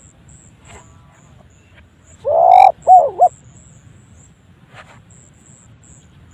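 Spotted dove (tekukur) giving one short, unusual coo about two seconds in: a loud low note followed by two quick wavering notes. It is the odd call the uploader hears as not the dove's usual voice.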